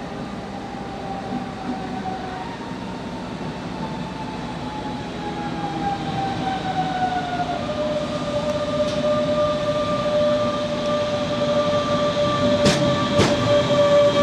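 A DB class 425 electric multiple unit pulling into a station, its traction whine falling in pitch as it slows, over a steady low rumble. It grows louder as it draws close, and two sharp clacks from the wheels come near the end.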